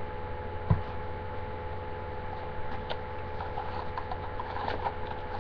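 Steady electrical hum, with a single thump about a second in. Small clicks and rustles come later as a cardboard perfume box is opened by hand.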